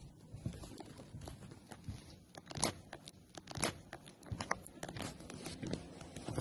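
Footsteps crunching on a pier walkway, irregular gritty clicks and scuffs, with a low rumble of wind on the microphone.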